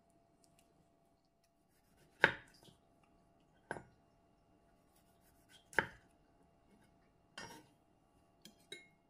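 Chef's knife cutting a peeled tomato into quarters on a wooden cutting board: four sharp knocks of the blade against the board spread over about five seconds, then two lighter clicks near the end.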